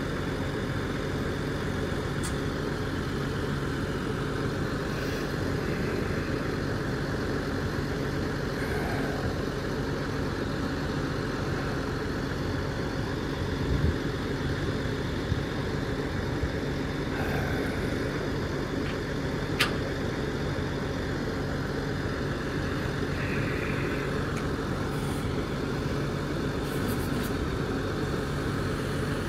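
Tow truck's engine idling steadily, with a few brief light clicks from the hooks being attached.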